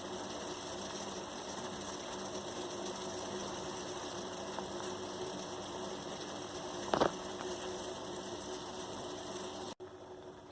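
Pot of herbal decoction simmering on a low gas flame: a steady rattling bubble and burner noise, with a short knock about seven seconds in. The sound drops quieter abruptly near the end.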